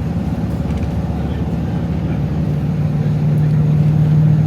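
Tour vehicle's engine and road noise, a steady low drone that grows a little louder near the end.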